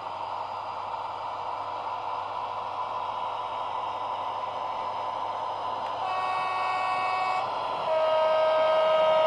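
H0-scale model ÖBB diesel railcar running along the track with a steady running hum, sounding two sustained horn blasts from its sound decoder near the end, the second lower-pitched and louder.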